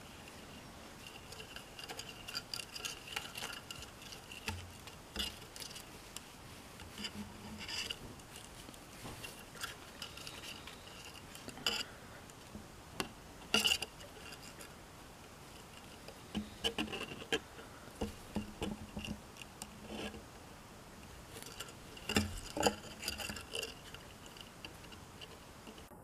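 Irregular light clicks, taps and cloth rustling from hands handling a 10-ounce silver bar and slipping it into a cotton drawstring pouch.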